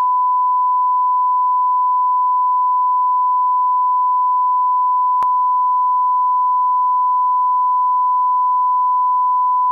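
Broadcast 1 kHz reference test tone played with the colour bars: one steady, unwavering beep at a single pitch. It is the line-up signal used to set audio levels before a programme.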